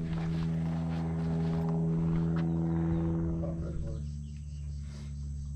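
Steady drone of an engine held at one speed, fading away about four seconds in.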